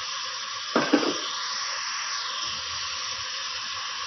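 Beef and onions sizzling steadily as they fry in a little oil in a deep pot, with a brief louder sound about a second in.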